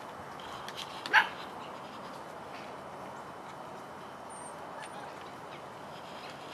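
A Vizsla puppy gives a single short, sharp yip about a second in, with a couple of fainter puppy noises just before it, over a steady outdoor background.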